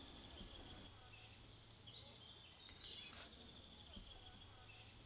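Faint outdoor quiet with small birds chirping, short high calls repeating about twice a second, and a low steady hum beneath.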